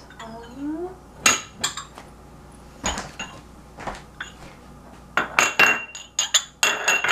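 Small glass jars clinking and knocking against each other and the kitchenware: a few scattered knocks, then a quick run of clinks in the last two seconds, some ringing briefly.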